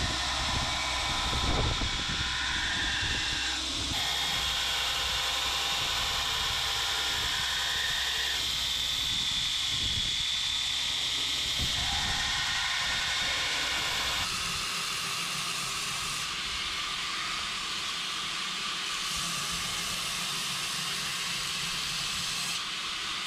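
Belt grinder running with a steel knife blade held against its abrasive belt: a steady grinding hiss. The hiss changes character abruptly several times.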